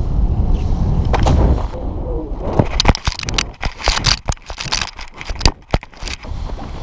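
Wind buffeting the microphone, then from about two and a half seconds in a quick flurry of sharp knocks, scrapes and rustles as the paraglider pilot and his harness-mounted camera hit and tumble on the grass in a rough landing, dying away about six seconds in.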